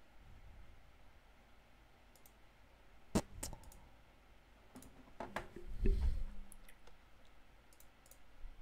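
Sharp, scattered clicks of a computer mouse and keyboard being worked at a desk, with a dull knock about six seconds in.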